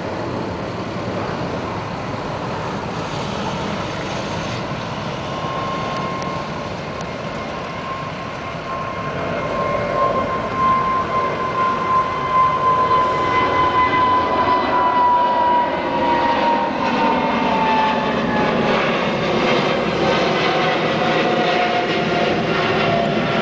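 Boeing 777-200's GE90 turbofan engines at takeoff power passing overhead: a broad jet roar with a high engine whine. The whine slowly falls in pitch as the aircraft climbs away, and the sound grows louder about ten seconds in.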